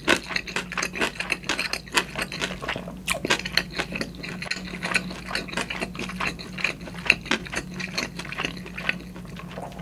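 Close-miked eating: wet chewing with many quick clicks and mouth sounds throughout.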